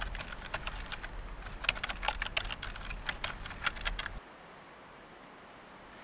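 Light plastic kite crackling and flapping in the wind, a dense run of irregular crisp clicks over low wind rumble on the microphone, cutting off suddenly about four seconds in to a faint hiss.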